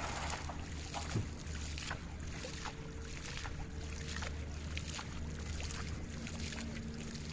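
Water slapped and splashed over and over by hand in shallow water, short splashes roughly every half second, beating the water to drive fish toward a net. A steady low hum runs underneath.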